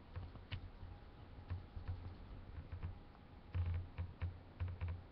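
Irregular light clicks and soft low knocks of a toothpick stirring nail polish in a small plastic cap, with a louder cluster of knocks about three and a half seconds in.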